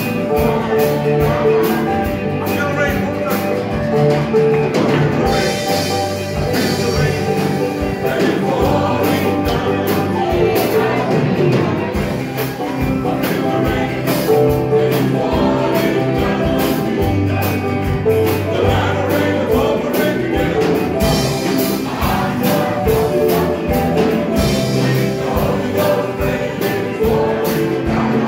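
Live gospel praise-and-worship music: a band with keyboard, electric guitar and drums keeps a steady beat while the congregation sings along and claps.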